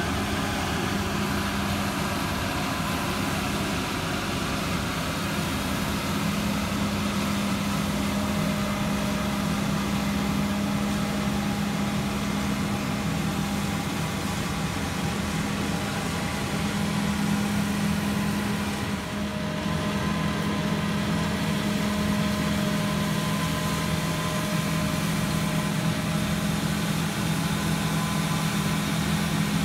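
Combine harvester's diesel engine running steadily, a constant low drone with a faint higher whine.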